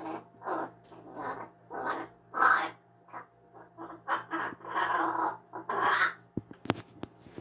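A pet bird giving a quick run of short, harsh calls, about one every half second, with longer chattering calls about five seconds in. A couple of sharp clicks come near the end.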